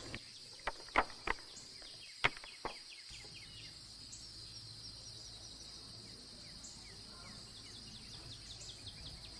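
Faint background ambience of insects buzzing and birds chirping, with a few short sharp clicks in the first three seconds.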